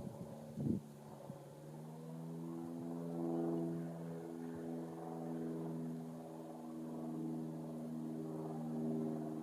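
A steady engine drone, a hum of several pitched tones that swells and eases gently, after a short knock under a second in.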